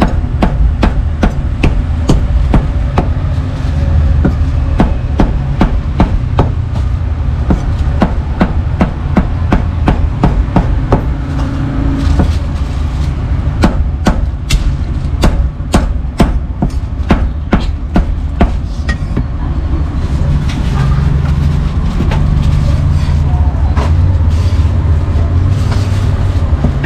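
Meat cleaver chopping pork on a cutting board: a long run of sharp knocks, about two or three a second, over a steady low rumble.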